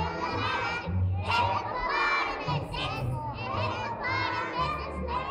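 A group of young children's voices singing a song together, with many voices overlapping and wavering, some close to shouting.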